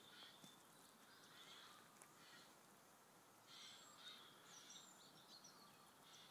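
Near silence with faint bird chirps, a cluster of short high calls about halfway through.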